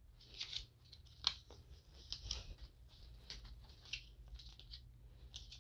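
Faint handling noise: scattered short rustles and clicks, with one sharper click a little over a second in, over a low steady hum.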